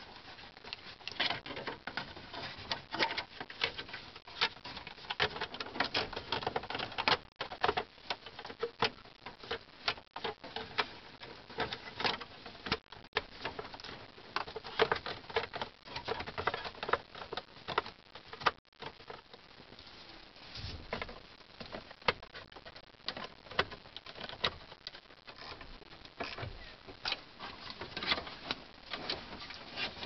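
Plastic steering-column cover panels of a 1999 Chevy Silverado being handled and fitted back over the column, with dense irregular clicking and rattling throughout, broken by a few brief gaps.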